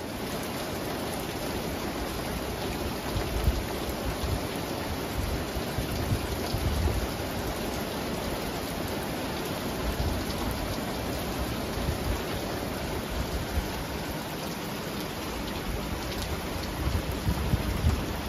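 Steady rain pouring down, heard from under a porch roof, with occasional louder low thuds.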